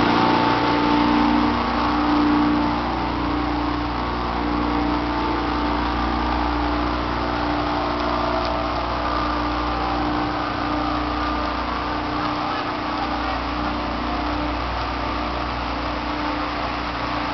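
A steady motor hum over a low rumble, with no sharp events.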